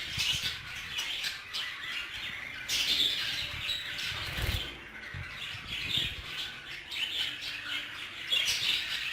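A flock of budgerigars chattering with continuous overlapping chirps and squawks, with a couple of low thuds near the middle.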